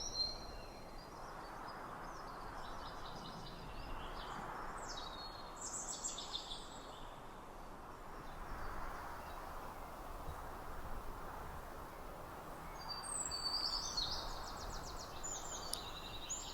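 Songbirds chirping and trilling in scattered short bursts, with a longer run of quick trills near the end. Under them is a soft, steady rushing background that slowly swells and fades.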